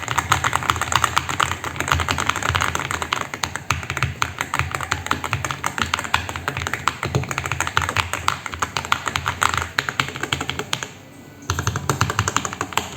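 Typing on a Vortex Series Xera 87 mechanical keyboard: a fast, continuous run of key clacks, with a short pause about eleven seconds in before the typing resumes.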